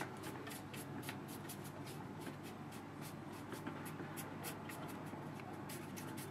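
Wide flat hake brush swept back and forth across wet watercolour paper, a scratchy brushing in quick repeated strokes.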